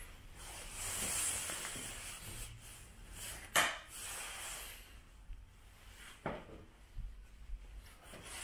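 Quiet rustling and handling noise as a phone camera is carried through rooms, with a sharp click about three and a half seconds in as a bathroom light switch is flipped on, and a softer knock a few seconds later.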